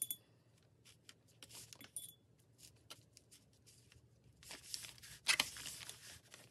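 Faint scattered clicks, light clinks and rustles of painting supplies being handled on a tabletop, with louder rustling and a knock about five seconds in as the canvas is shifted by hand.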